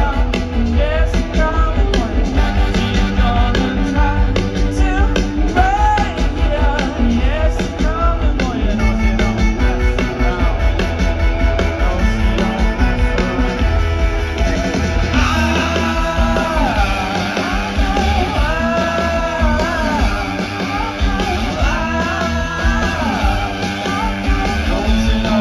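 Rock band playing live through a large outdoor PA, heard from within the crowd: heavy bass and drums with guitars under a male lead vocal that grows stronger about halfway through.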